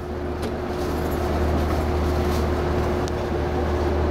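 Steady hum of a Chichibu Railway 5000 series electric train standing still, heard from inside at the front: a deep drone with a constant higher tone from its onboard equipment, and a few faint ticks. It fades in over the first second or so.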